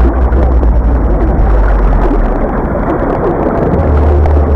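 Hydrophone recording of a blue whale played over a loudspeaker: heavy rumbling underwater noise over a deep hum that weakens about two seconds in and swells again near the end, the noise masking the whale's very low call.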